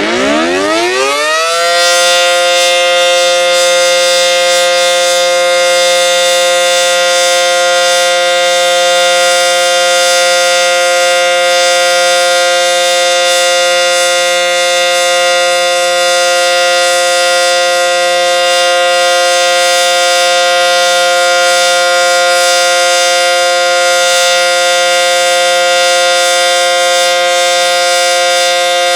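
ACA Banshee 115 outdoor warning siren winding up, its pitch rising over the first couple of seconds, then holding one loud, steady tone: the full alert signal of a siren test.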